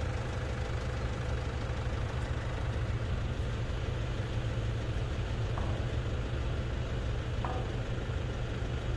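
Ferry boat's engine running steadily under way, a constant low drone over a steady hiss. Two faint short high sounds come about five and a half and seven and a half seconds in.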